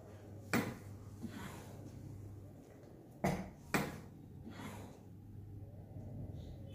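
Maquet Servo-air ventilator running its pre-use self-test: a steady low hum with three sharp clicks, one about half a second in and two close together a little after three seconds.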